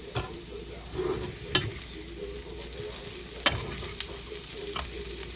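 Food sizzling as it fries in a pan while a utensil stirs it, with about five sharp clicks of the utensil striking the pan, the loudest two about a second and a half and three and a half seconds in.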